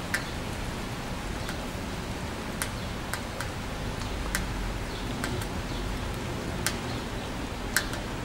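Steady rain falling on leafy trees and the ground, with irregular sharp ticks from single drops striking a hard surface close by, about a dozen in all.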